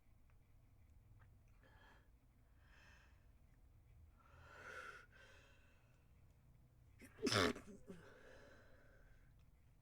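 A person's stifled sneeze about seven seconds in: one short, sharp burst held back in the nose and mouth. Before it come a few faint breathy inhales, with a louder one building up a couple of seconds earlier.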